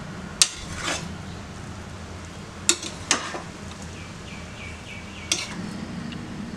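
A metal serving spoon clinking against the rim and sides of an aluminium pressure cooker while cooked rice is stirred and fluffed, with about five sharp, separate knocks.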